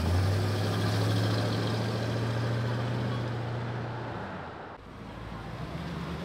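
Late-1950s Chevrolet pickup's engine running steadily as it drives slowly past, a low drone that fades as it pulls away. Shortly before five seconds in, a second low engine drone takes over, from a 1980s square-body Chevrolet pickup rolling up.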